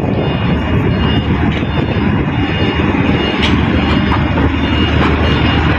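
Loud, steady low engine rumble.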